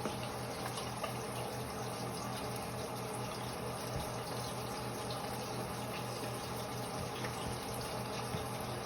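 Kitchen tap running steadily into a sink, with a faint low hum underneath.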